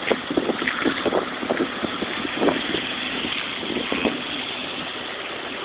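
Footsteps crunching through deep fresh snow, irregular soft thumps, over steady wind noise on the microphone.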